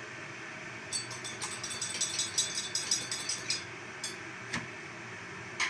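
Small hard objects rattling and clinking: a quick run of little clicks for about two and a half seconds, then a few single clicks.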